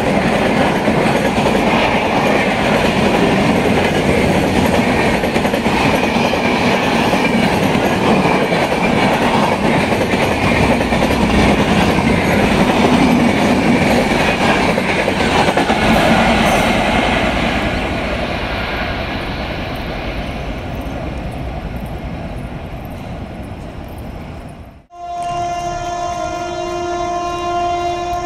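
Passenger train passing at high speed: a loud, steady noise of wheels running over the rails that fades away over its last several seconds as the train recedes. After an abrupt cut near the end, an electric locomotive's horn sounds a steady chord.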